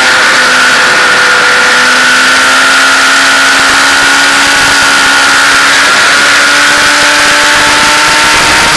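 Motorcycle engine running at steady speed under heavy wind rush on the onboard microphone, its note easing slightly up through a bend in the second half.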